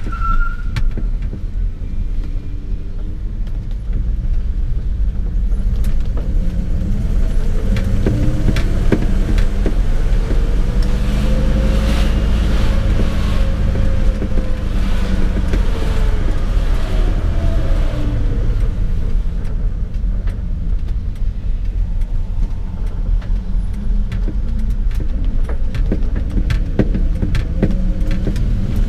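A 1977 Dodge D200's 318 two-barrel V8 running, heard from inside the cab as the truck drives. The engine note climbs in pitch about a third of the way in as it pulls, then eases back down, under a steady low drone and occasional light clicks and rattles.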